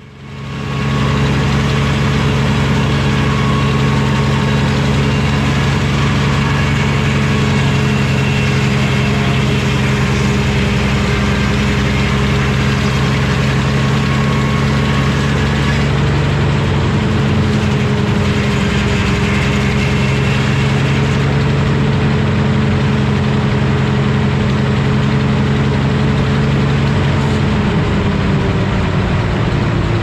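Vintage Frick circular sawmill running loud and steady, its large carbide-tipped circular blade sawing through a basswood log. The pitch sags slightly near the end.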